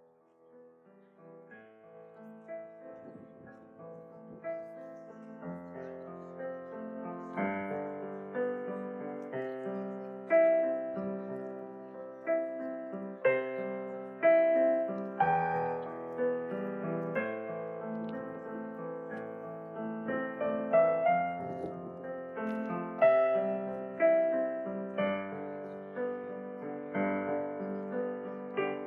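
Solo piano music, fading in from silence over the first few seconds and then playing at a steady level.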